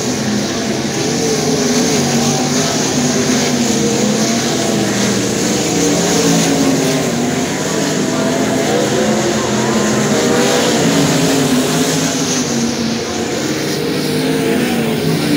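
Several winged sprint car V8 engines running on a dirt oval, their pitches wavering up and down as the cars circle the track.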